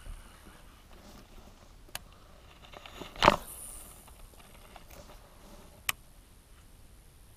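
One loud splash about three seconds in, a big fish striking at a topwater frog lure on the surface and missing it. Two sharp clicks, one before and one after.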